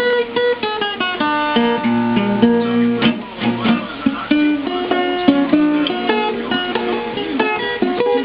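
Acoustic guitar playing, picked notes changing quickly with a few chords.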